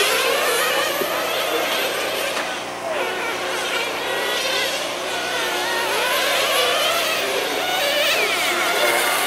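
Several small nitro (glow-fuel) engines of radio-controlled racing sedans buzzing at high revs, their overlapping notes rising and falling continually as the cars accelerate, brake and lap the track.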